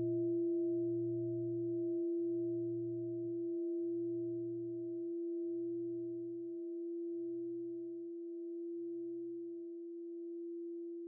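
A long steady ringing tone, slowly fading, with a lower throb that pulses about every second and a half and dies away about nine and a half seconds in.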